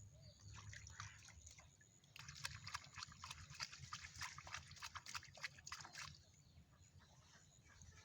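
Faint water splashing and dripping, with a dense patter of small splashes from about two seconds in that dies away near six seconds.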